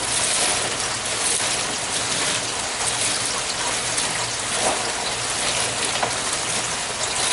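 Steady rush of falling, splashing water, with a faint low hum beneath it and a few light clicks of lava rock moved by hand.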